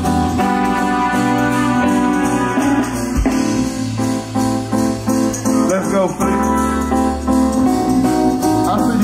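Live band music: sustained keyboard chords over a bass line that shifts every second or two.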